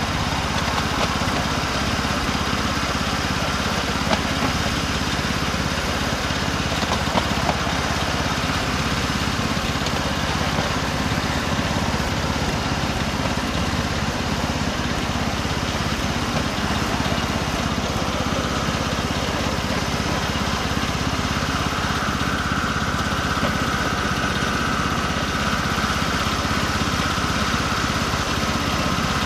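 The small engine of a 7¼-inch gauge Class 03-style miniature shunting locomotive running steadily as it hauls along the track, with a couple of brief clicks early in the run. A higher whine grows stronger in the last third.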